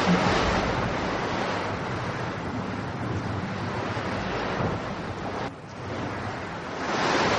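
A steady rushing noise of wind and surf, swelling and easing, with a short drop about five and a half seconds in.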